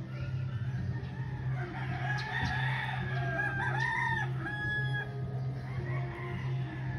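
A long, pitched bird call that rises and falls, starting about two seconds in and lasting about three seconds, over a steady low hum.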